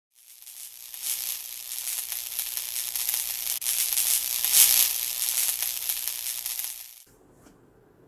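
A high, crackling hiss that fades in, holds for several seconds and cuts off sharply about a second before the end.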